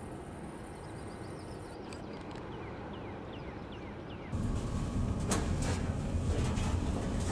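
Outdoor ambience, a steady low rumble with a bird giving a quick series of short falling chirps. About four seconds in it cuts to louder indoor sound with sharp knocks of footsteps in a hallway.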